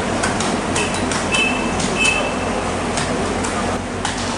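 Busy fish market background noise, a steady din with scattered clicks and knocks. Two short high beeps come about a second and a half and two seconds in.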